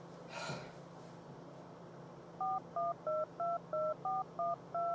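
Touch-tone keypad of a mobile phone dialing a number: eight quick two-note beeps in a steady run over the last two and a half seconds, after a short rustle about half a second in.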